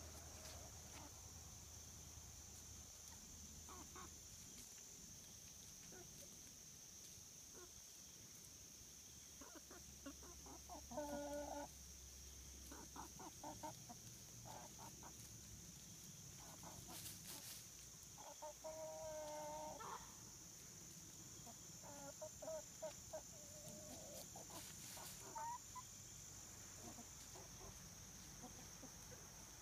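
Chickens clucking softly now and then as they forage, in a few short runs of clucks, the longest lasting about a second and a half.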